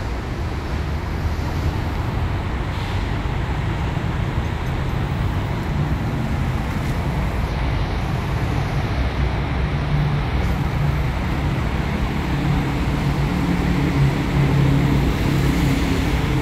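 A motor vehicle's engine running steadily with a low rumble, getting a little louder in the second half.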